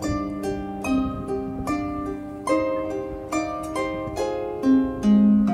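Background music: a solo harp playing a slow Japanese melody, plucked notes and chords each ringing and fading, a new one about every half to one second.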